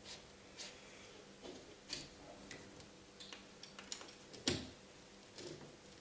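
Scattered small clicks and creaks, with one sharper knock about four and a half seconds in, as a replica rear spoiler is worked loose from a car's tailgate by hand.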